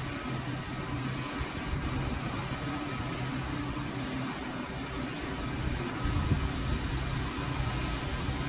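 An engine running steadily at idle: a continuous low hum, slightly louder for a moment about six seconds in.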